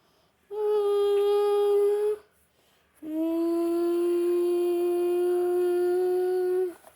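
A voice holding two long, steady, howl-like notes, the second about twice as long as the first.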